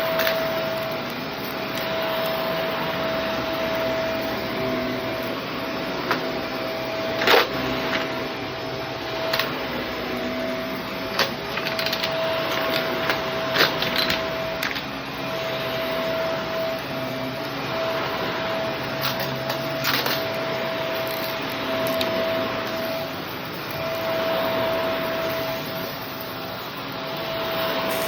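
Shark vacuum cleaner running steadily with a constant whine, broken by scattered sharp clicks as debris from a test mess is sucked up.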